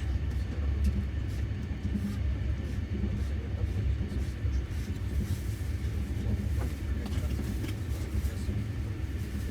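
Steady low rumble of a moving passenger train, heard from inside a sleeper carriage.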